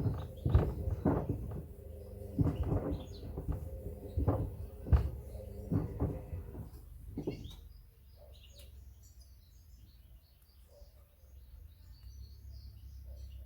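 Hoover washing machine tumbling a load of wood: the pieces knock against the drum over and over, about one or two bangs a second, over the motor's steady hum. The drum stops about seven and a half seconds in, leaving faint birdsong.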